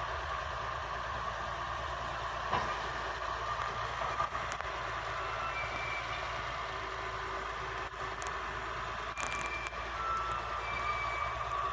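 Engine of an old Bucyrus dragline excavator running steadily as the machine swings its boom and bucket. There are a couple of sharp knocks early on and a few brief high tones later.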